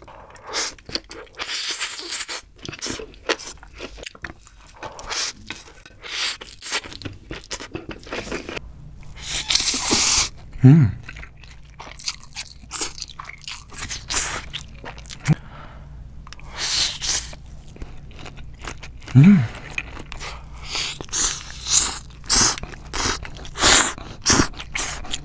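Close-miked eating of fried instant noodles (Indomie mi goreng): noodles slurped up from chopsticks in several long slurps, with wet chewing and crisp crunchy bites in between.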